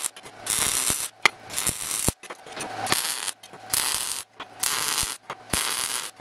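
MIG welder running short welds on a steel part: the arc crackles and fries in several short bursts of about half a second each, with a low hum while the arc is on.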